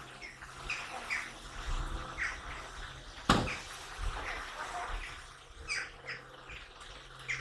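Small birds chirping, with short calls repeating throughout, and one sharp knock a little after three seconds in.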